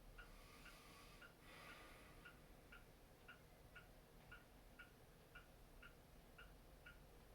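Clock ticking steadily, about two ticks a second. About a second in there is a soft breath from the sleeper.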